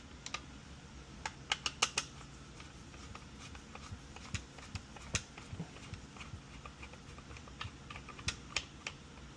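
Light, irregular clicks and taps of a circuit board, its plastic parts and small tools being handled on a workbench, with a cluster of sharper clicks about two seconds in and again near the end.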